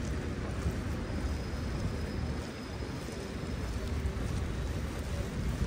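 Street traffic on wet pavement: a steady hiss of tyres and engines with a low rumble.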